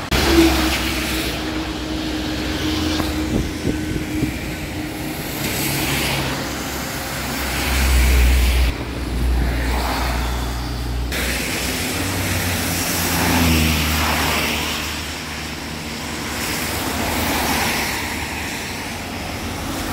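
Road traffic passing on a wet road: cars and a lorry swish by one after another, their tyres hissing on the wet asphalt, each one swelling and fading. Under it runs a low rumble of wind on the microphone.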